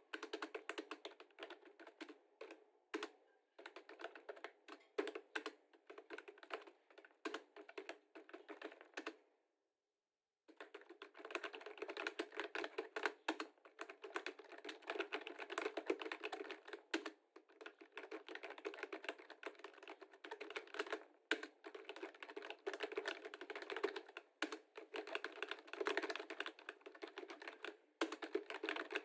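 Computer keyboard being typed on rapidly, key clicks in quick flurries, with a pause of about a second a third of the way in.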